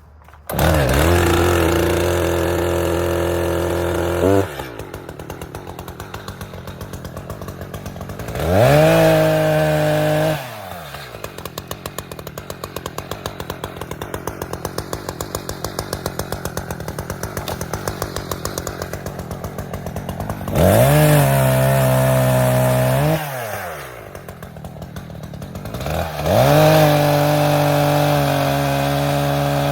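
Chainsaw cutting a fallen dead tree limb. The saw is opened up four times, the engine pitch rising into each burst, and each burst lasts a few seconds. Between bursts it idles with a rapid, even putter.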